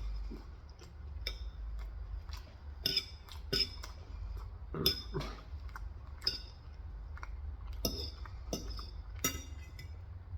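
Eating sounds: irregular light clinks and crisp clicks, a few each second, over a steady low hum.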